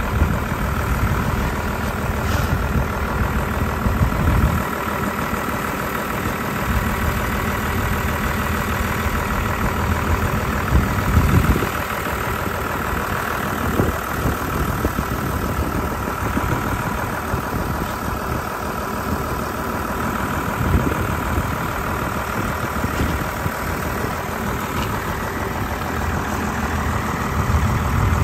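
An engine idling steadily, with a few knocks near 4 and 11 seconds in.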